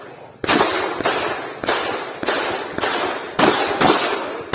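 A string of shotgun shots fired in quick succession, roughly two a second, each with a short trailing echo: a shooter working through a practical shotgun stage.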